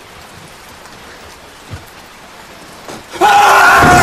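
A steady hiss, then about three seconds in a boy lets out a loud, high-pitched scream that lasts most of a second.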